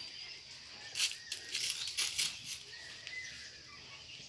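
A light metal chain rattling and clinking in a quick, irregular series of sharp clicks, most of them between about one and two and a half seconds in, as the dog tethered on it jumps about.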